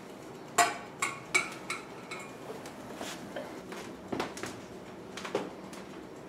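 Steel screwdriver tapping on a metal colander worn as a helmet: sharp metallic clinks with a short ring. A quick run of loud clinks starts about half a second in, followed by fainter, irregular taps.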